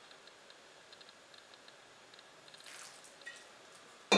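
Faint rustle of a hand mixing crumbly flour and grated boiled potato in a glass bowl, with a few tiny ticks and a soft hiss, then one sharp knock with a short ring near the end.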